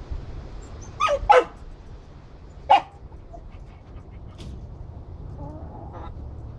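Short, sharp animal calls falling in pitch: two in quick succession about a second in and a single one near three seconds. A softer, lower call follows near the end.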